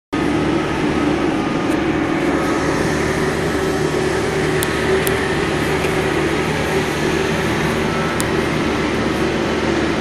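Caterpillar 420E backhoe loader's diesel engine running steadily, heard from inside its cab, with a few faint clicks over the drone.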